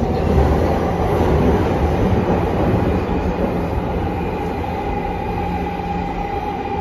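Mitsubishi GTO-VVVF inverter-driven electric commuter train heard from inside the passenger car while running: a steady rumble of wheels on rail with a whine held at an even pitch.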